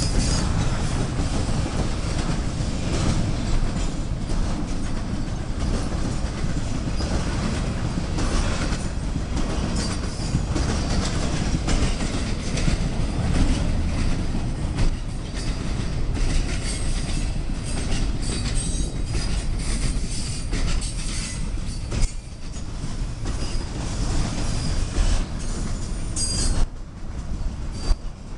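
A train rolling past with a steady rumble of railcars, wheels clicking over rail joints and squealing in short high bursts again and again.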